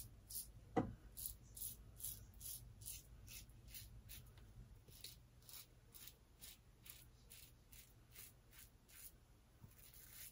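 Rockwell 6C double-edge safety razor, fitted with an Astra Blue blade on its number-three plate, scraping through lathered stubble in short faint strokes, about two a second. A single knock comes about a second in.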